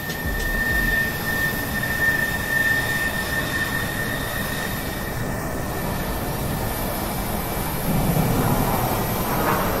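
Airliner engines heard from inside the cabin while the plane taxis: a steady rush of engine and cabin noise with a thin high whine that fades about two-thirds of the way through. The noise grows a little louder near the end.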